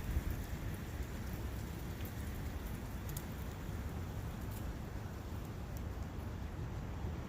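Steady forest ambience of wind and a running brook: an even rushing noise, heaviest in a low rumble, with a few faint ticks above it.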